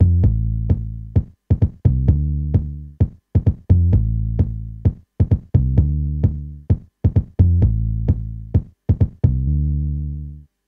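Sample-based electronic music played live: sharp percussion hits over a deep, decaying bass note, looping about every two seconds. It cuts off just before the end.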